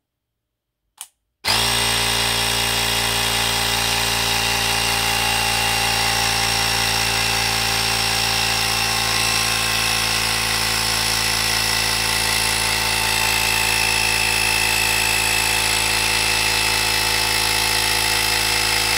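Parkside PAK 20-Li B2 cordless compressor inflating a bicycle tyre through its hose: a faint click, then the motor starts about a second and a half in and runs steadily at one pitch. It cuts off suddenly at the very end, its automatic shut-off at the preset 27 psi.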